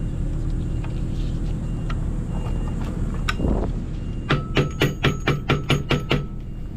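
A mallet striking metal in a quick run of about ten blows, about five a second, starting about four seconds in, after a few scattered clicks. A steady low hum runs underneath.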